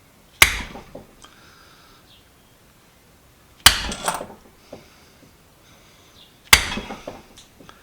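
Hammer striking a steel pin punch to drive out a stuck retaining pin in a small metal hand vise: three sharp metallic blows about three seconds apart, each followed by a short rattle.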